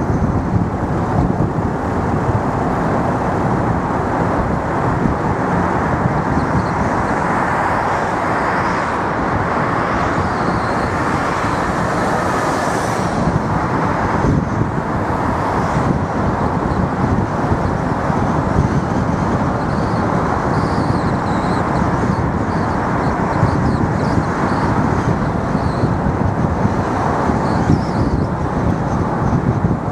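Steady road and engine noise of a car driving along a city street: an even rumble and tyre hiss that holds at one level throughout.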